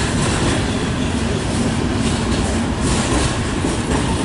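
Cars of a long freight train rolling past close by: a steady, loud rumble and rattle of steel wheels on the rails, with a few sharper knocks.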